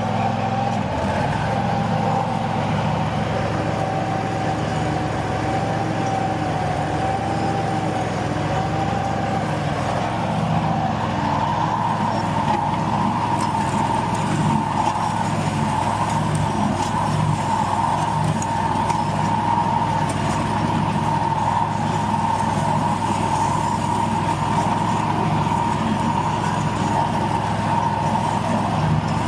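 Riding lawn mower's engine running steadily under way, with a constant high whine that rises a little in pitch about eleven seconds in.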